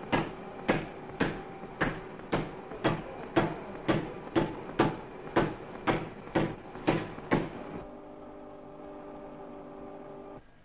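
A workshop machine knocking in a steady rhythm, about two sharp strokes a second. The strokes stop about three quarters of the way in, leaving a steady hum with a few held tones that cuts off abruptly near the end.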